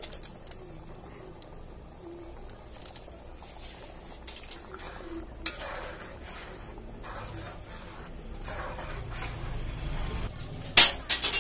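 Metal spatula scraping and clicking against a wok while stirring a thick cream sauce, with a cluster of sharp knocks near the end.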